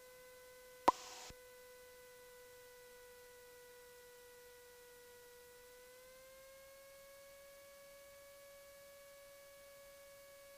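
Faint steady whine on the aircraft's headset intercom audio, with a short click about a second in; the whine steps up slightly in pitch about six seconds in.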